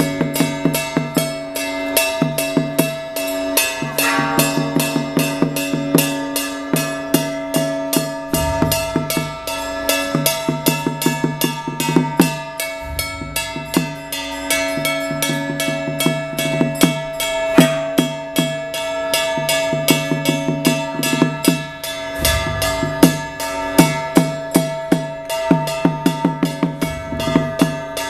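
Taiwanese Taoist ritual percussion: a small hand-held gong and a drum struck in a rapid, steady beat, the gong ringing on between strokes. Deeper drum strokes come in a few times.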